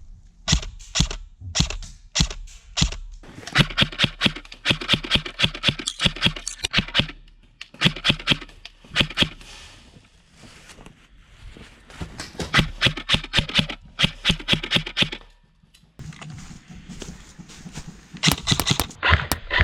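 Lancer Tactical LT-29 Enforcer M4 airsoft electric gun firing: a few single shots, then several rapid full-auto volleys of a second or more, each a quick string of sharp snaps.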